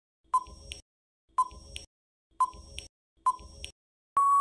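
Quiz countdown-timer sound effect: four short ticks about a second apart, then a longer steady beep near the end as the countdown runs out.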